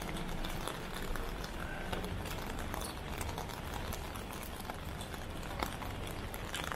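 Crowded city street: many footsteps clicking on the pavement, scattered through the whole stretch, over a steady low hum and faint crowd murmur.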